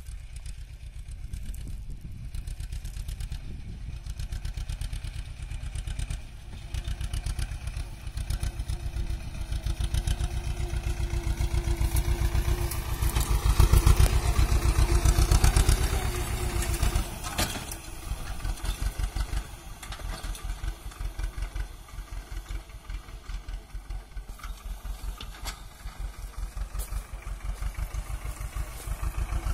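Swaraj 724 XM tractor's two-cylinder diesel engine running as it drives past towing an air-blast orchard sprayer, with the sprayer's blower adding a hiss. It grows louder as the tractor comes close, is loudest about halfway through, then fades as it moves away.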